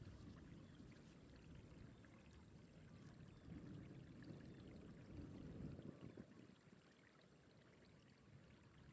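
Faint, uneven low sloshing of water, dying down somewhat after about six seconds, with a thin steady high tone behind it.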